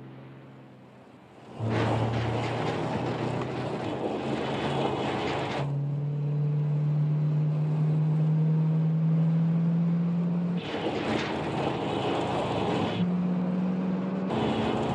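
Car engines at speed in a chase: a vehicle comes up loud with engine and tyre noise about a second and a half in. Then a car engine pulls hard, its pitch rising slowly for several seconds, and a rush of road and tyre noise comes back near the end.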